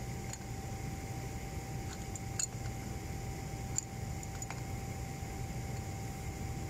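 Adjustable steel wrench clicking and clinking against the pipe fitting under a pressure pump controller as the fitting is tightened. There are a handful of sharp metal clicks at irregular moments, the loudest about two and a half and four seconds in, over a steady low hum.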